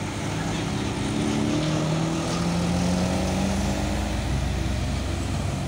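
Road traffic passing close by: the engines of a light box truck, cars and motor scooters going by, their engine tones slowly rising and falling, with a deeper engine rumble building in the second half.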